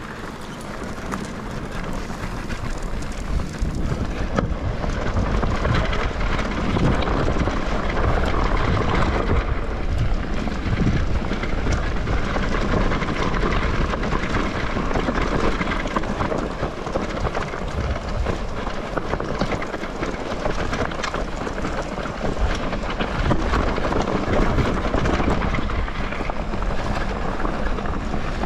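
Mountain bike riding down a rough, stony trail: wind buffets the camera microphone while the tyres crunch over loose stones and the bike rattles over the bumps. The noise builds over the first few seconds as speed picks up, then stays loud.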